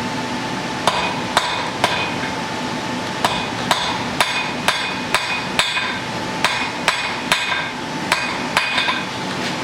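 Blacksmith's hammer striking a hot iron bodkin arrowhead on an anvil, forging the head into shape. The blows come about two a second, each with a ringing anvil tone, and there is a pause of about two seconds near the start.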